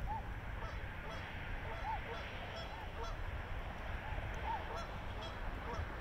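A gathering of swans calling: many short honking calls, one after another and overlapping, over a low rumble of wind on the microphone.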